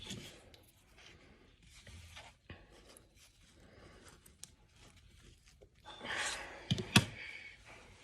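Plastic toy packaging being handled: faint rustling and small clicks. The rustling grows louder about six seconds in, and a sharp click comes just before the seventh second.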